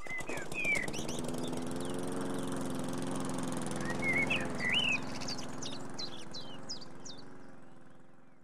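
Small birds chirping and whistling in short rising and falling calls over a steady low hum, the whole fading out near the end.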